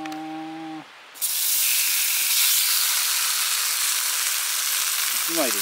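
A slice of bacon goes into a hot buttered frying pan about a second in and starts sizzling at once, then keeps frying with a steady hiss.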